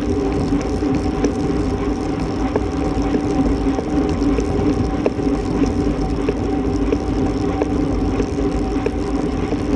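Wind rushing over a bike-mounted camera's microphone at about 24 mph, with the steady hum of road-bike tyres rolling on asphalt.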